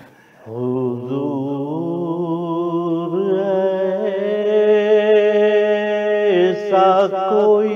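A man reciting a naat without instruments. He opens with a long, drawn-out note that wavers and slowly climbs, starting about half a second in.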